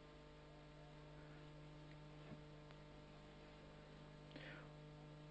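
Near silence with a steady low electrical hum in the recording, and a faint click about two seconds in.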